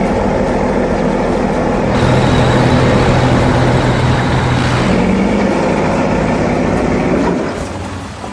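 Heavy construction machinery engines running steadily, a little louder from about two seconds in and easing off near the end.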